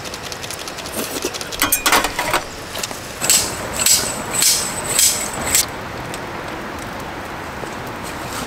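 Clinking and scraping of metal utensils and dishes over a steady rain hiss: a short clatter about two seconds in, then five quick scraping strokes about half a second apart.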